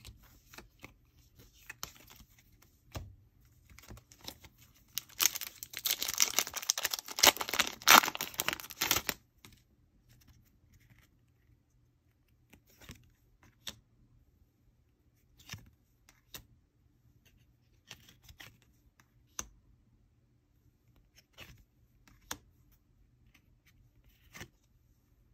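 A trading-card booster pack wrapper being torn open, crinkling for about four seconds, followed by scattered light taps and clicks as the cards are slid and handled.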